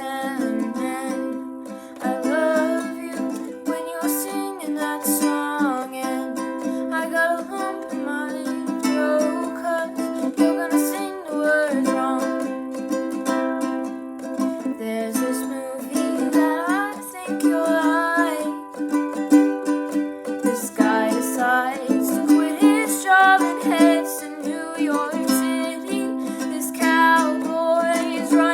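Ukulele strummed in a steady rhythm of chords, with a voice singing along over it.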